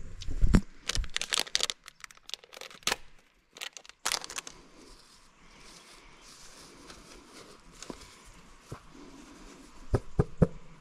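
Small plastic sachet of a lemon moist towelette being crinkled and torn open, with sharp crackly strokes for the first few seconds. The damp towelette is then unfolded with soft rustling, and a few sharp crinkles come near the end.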